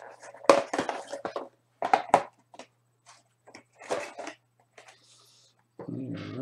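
Crinkling and tearing of trading card pack wrappers as packs are handled and opened, in a string of short sudden bursts. A low hummed voice comes in near the end.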